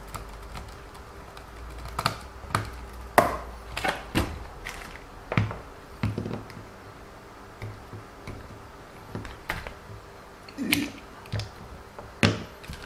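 Irregular sharp clicks and taps, about a dozen spread unevenly, of small plastic suspension parts and a small tool being handled and fitted together on a WLToys 144001 RC car.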